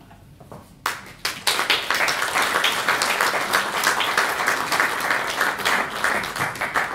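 Theatre audience applauding: a few scattered claps about a second in, then full, dense applause from about a second and a half in.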